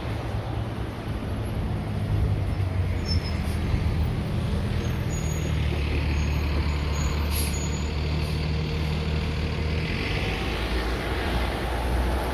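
A steady low mechanical hum and rumble, with several low tones held level, louder after about two seconds and easing near the end.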